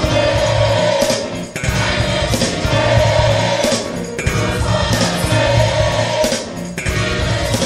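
Gospel music: a choir singing over instrumental backing.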